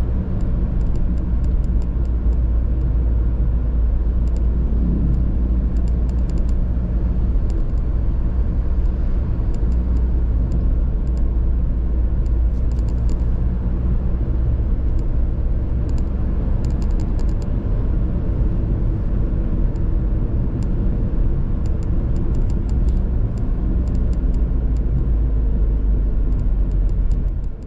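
Steady low rumble of a vehicle driving along a road, engine and tyre noise.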